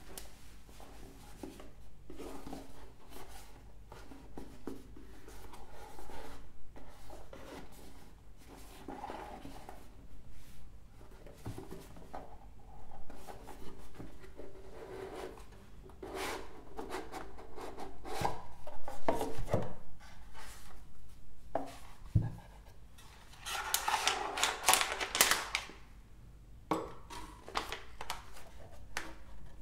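Hands unpacking a boxed collectible: cardboard boxes sliding, rubbing and tapping, with a few sharp knocks, and a louder stretch of plastic-bag crinkling for about two seconds about three-quarters of the way through.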